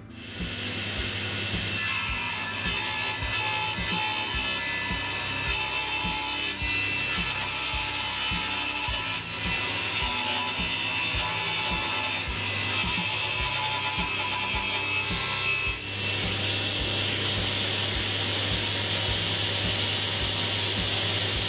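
Table saw running and cutting thin laminate boards fed on its sliding table: a steady motor hum under the rasping hiss of the blade through the board. The sound builds over the first two seconds and its tone shifts abruptly near the end.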